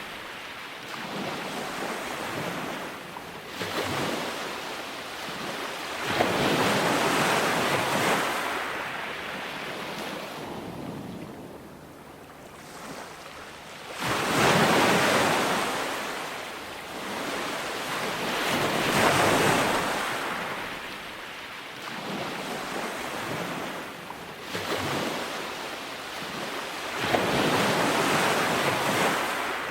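Ocean surf breaking on a beach and washing back, the rush swelling and fading every few seconds, with the loudest surges about halfway through and near the end.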